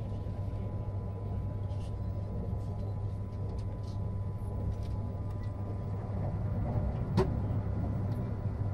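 Cabin noise inside a moving Renfe passenger train: a steady low rumble and hum. Faint ticks run throughout, with one sharp knock about seven seconds in.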